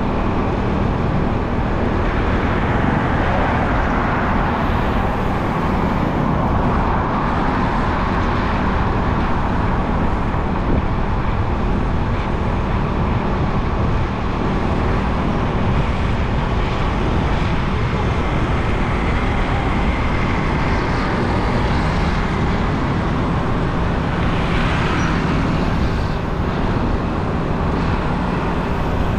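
Motorcycle riding along a city street, heard from the rider's seat: a steady rush of engine, tyre and wind noise, with other traffic passing by.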